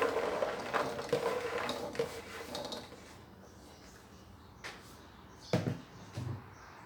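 Karanda fruits being tossed in warm sugar syrup in a pan, with a utensil scraping and clattering against the pan, busiest for the first few seconds; a few separate knocks follow.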